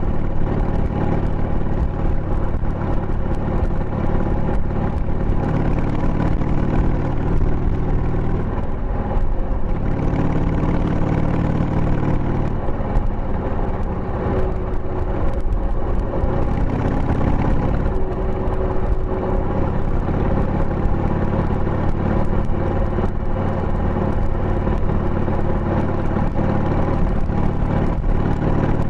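A 2000 Harley-Davidson Sportster 883's air-cooled Evolution V-twin running through tapered mufflers with the baffles fitted while the bike is ridden along a road. The engine note steps up and down in pitch several times as the revs change.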